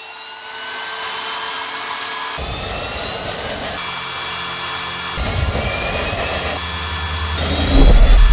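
Test-bench machinery for helicopter engine fuel-control units spinning up with a rising whine, then running with a steady mechanical whine and hum that changes in steps. Near the end a much louder, low helicopter rotor and turbine rumble comes in.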